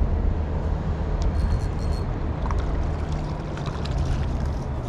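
Steady low rumble, with small splashes near the end as a hooked bream thrashes at the water's surface while being played to the bank, and a brief high tone about a second and a half in.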